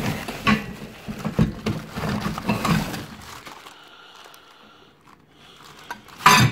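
Plastic wrapping crinkling and rustling as plastic-wrapped exhaust header parts are handled in a cardboard box. It is busiest for the first three seconds, then settles to quieter handling, with one loud sharp noise near the end.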